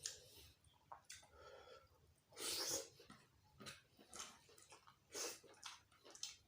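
A person eating close to the microphone, chewing gulai kikil and lalapan: irregular chewing and wet mouth noises with small clicks, and two louder half-second bursts about two and a half and five seconds in.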